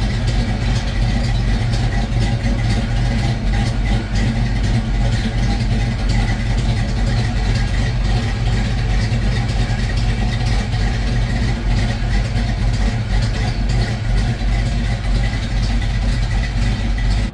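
1990 Saleen Fox-body Mustang's 5.0-litre V8 running at a steady, even idle, loud.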